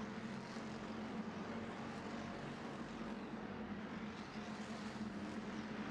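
A field of IMCA Hobby Stock race cars running laps on the dirt oval: their V8 engines blend into one steady drone with a constant low hum.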